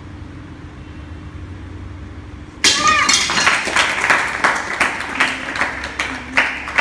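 A stack of tiles breaks with a sudden loud crash about two and a half seconds in, struck with the head, together with a short shout. Hand clapping follows at about three claps a second.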